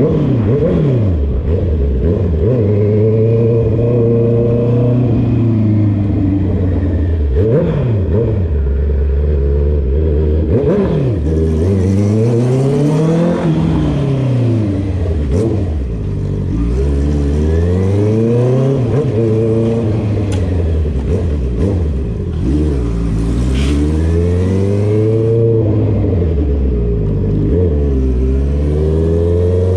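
Honda CB650R's inline-four engine through a straight-through full exhaust with the dB killer removed, loud, its pitch climbing and falling again and again as it is revved up and eased off.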